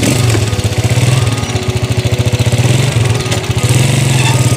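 Honda TMX motorcycle's single-cylinder four-stroke engine idling with an even, rapid putter.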